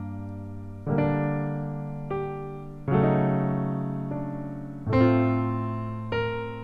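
Fabric Piano plug-in on an Akai MPC One playing back a MIDI chord pattern: sustained piano chords struck about every two seconds, each fading slowly before the next, with lighter notes in between.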